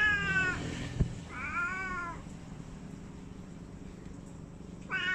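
A cat meowing three times, each meow rising then falling in pitch; the last one starts near the end. A short sharp knock about a second in.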